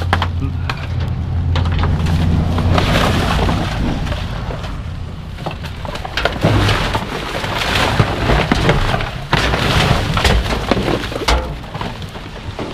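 Rain falling and pattering close to the microphone, with a low rumble in the first few seconds and scattered sharp knocks.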